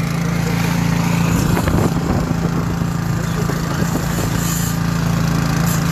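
Gasoline-powered salvage pump running steadily, its small engine droning as it pumps water out of a swamped jet ski, with the discharge gushing over the side of the boat.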